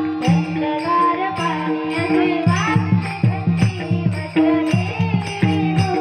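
A child's voice singing a Varkari bhajan, accompanied by pakhvaj drum strokes and small hand cymbals (taal) keeping the beat.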